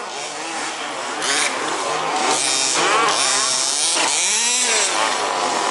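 Several 1/5-scale petrol RC buggies' small two-stroke engines revving up and down as they race past, pitches sweeping and overlapping, growing louder over the first couple of seconds.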